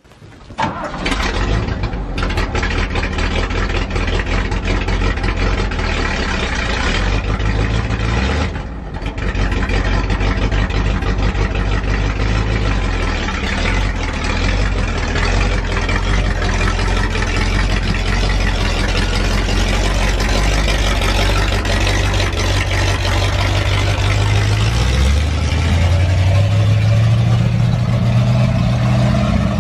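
1974 Chevrolet C60 dump truck engine idling steadily, then stepping up in pitch and getting a little louder near the end as the truck pulls away.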